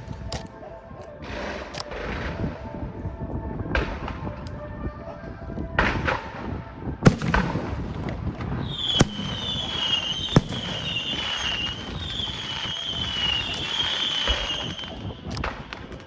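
Fireworks going off: bursts of crackling with sharp bangs. From about nine seconds in, a high whistle from whistling shells wavers for some six seconds over the bangs.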